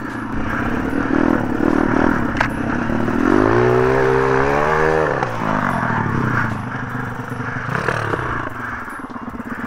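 MRF 140 RC pit bike's single-cylinder four-stroke engine being ridden off-road, the revs climbing from about three seconds in, dropping again at about five seconds, then easing off near the end.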